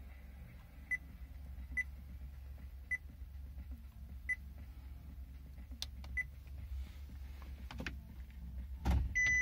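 Nissan MM114D-W navigation unit giving short touchscreen key beeps as on-screen buttons are pressed, five in the first six seconds, over a steady low hum. Near the end a loud clunk as the automatic gear lever is shifted, then the reverse warning beep starts.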